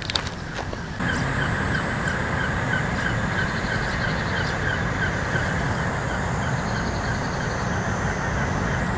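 A steady low hum with a fast, regular pulsing chirp over it and a faint high whine, starting about a second in. It is an unexplained noise that the campers take to be a running generator rather than an animal.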